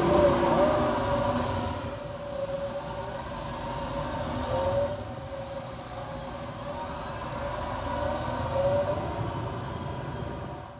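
A vehicle running: a steady rumble with a held whine and tones that slowly rise and fall in pitch. It is loudest at the start and fades out near the end.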